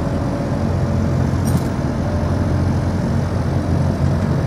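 Diesel engines of two heavy mobile cranes running steadily under load during a lift, a continuous low rumble.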